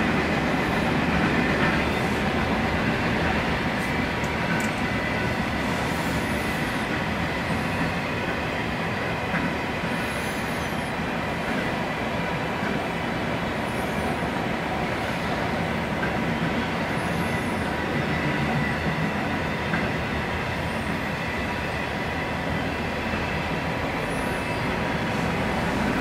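Freight train of enclosed autorack cars rolling steadily past, the wheels running on the rails in an even, continuous rumble.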